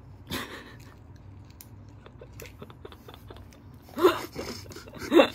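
Quiet chewing and small clicks of handling food, then about four seconds in a woman laughs loudly.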